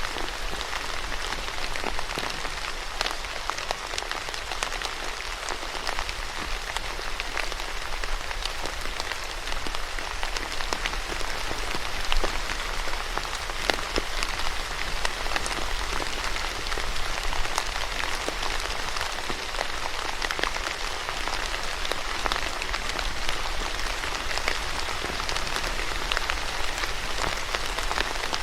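Steady rain falling, a continuous hiss dotted with many sharp individual drop ticks on a surface.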